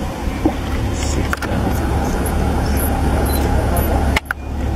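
A vehicle engine idling steadily as a low hum, with a brief dip in level about four seconds in.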